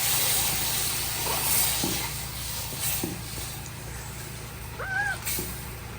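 Cooking pot sizzling with a steady hiss as the browned curry mixture fries. The hiss is loudest at first and slowly dies down.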